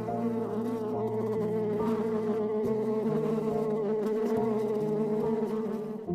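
A flying insect buzzing steadily, its pitch wavering slightly.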